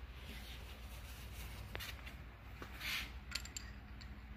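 A few light metal clicks and clinks as a stud puller is fitted onto a threaded steel head stud in a cast-iron engine block, with a brief rub or rustle in the middle, over a low steady hum.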